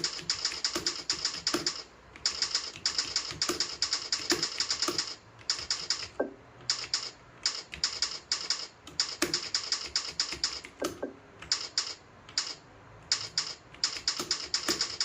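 Fast typing on a computer keyboard: rapid key clicks in runs of a second or two, with short pauses between runs.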